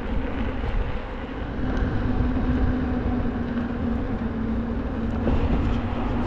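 Wind buffeting the microphone while riding an electric unicycle at up to about 25 km/h, with a steady low hum, most likely the wheel's hub motor, coming in about two seconds in.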